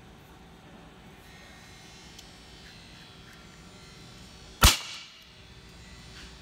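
A single shot from a .380 pen gun about two-thirds of the way through: one sharp crack with a short echo that dies away in about half a second. Faint clicks from handling the gun come before it.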